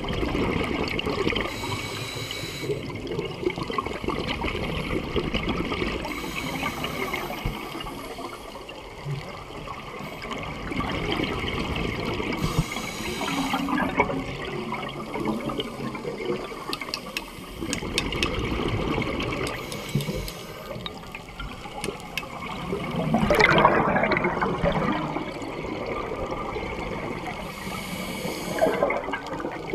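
Scuba breathing underwater: a regulator hiss every few seconds and the bubbling gurgle of exhaled air, with the loudest burst of bubbles about two-thirds of the way through.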